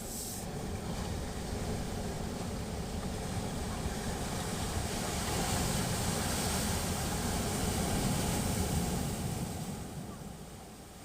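Sea waves washing on the shore, swelling louder about halfway through and easing off near the end, with a low wind rumble on the microphone.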